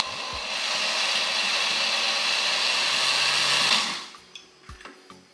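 Oster countertop blender motor running for about four seconds, then switched off, winding down. It is churning a thick, nearly solid mix of grated carrot, ground almonds, eggs and Greek yogurt that is too dry to blend without adding milk.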